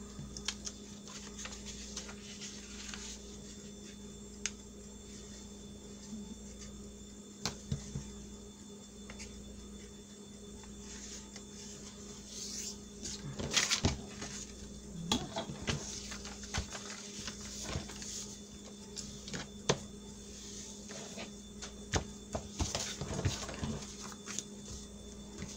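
Paper being handled against a steel ruler on a cutting mat: soft scattered rustles and taps, busier and louder in the second half as the page is picked up and moved. A steady low hum runs underneath.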